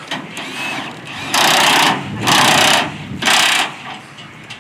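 A pneumatic air tool run in three short bursts, each about half a second long. The bursts are loud rattling hiss, with a low engine-like rumble underneath.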